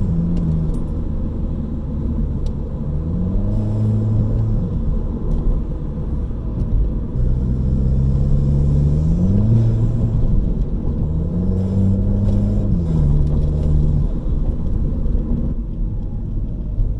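Turbocharged four-cylinder of an MK7 Volkswagen Golf GTI fitted with an Injen intake, accelerating under load with turbo spooling and intake whoosh. The engine note climbs and drops about four times as it pulls through the gears, over a constant road rumble.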